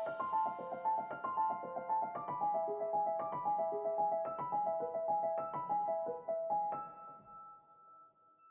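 Background music: a bright keyboard melody of short, quick notes, ending on a held note that fades out about seven seconds in.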